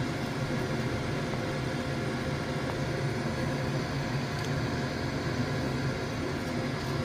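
Vaillant ecoTEC plus 831 combi boiler running on hot water demand: a steady mechanical hum, the noise the engineer takes for the sign of a weak pump.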